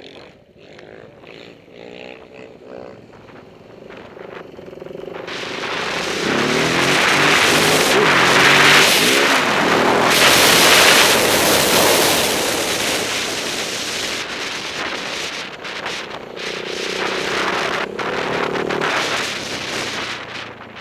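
Motorcycle engine heard from an onboard camera, at low revs at first, then accelerating hard with the pitch rising in repeated sweeps through the gears. From about five seconds in, loud wind rush on the microphone joins it. The wind and revs ease later, and the engine holds a steadier note near the end.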